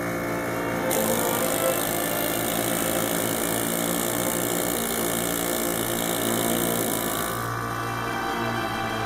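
Background music with sustained notes, over a steady hissing machine noise that stops about seven and a half seconds in.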